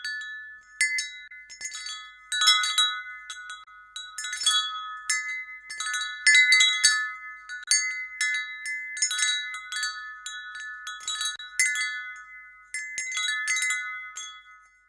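Wind chimes, struck irregularly, with several ringing tones that overlap and ring on, dying away near the end.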